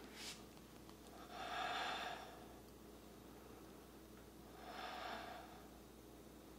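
A woman's slow breathing while she holds a yoga side plank: two long, soft breaths, the first about a second in and the second about three seconds later.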